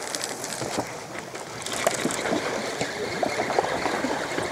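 Sea water splashing and rushing along a boat's hull: an uneven, gurgling wash that grows a little louder after about a second and a half.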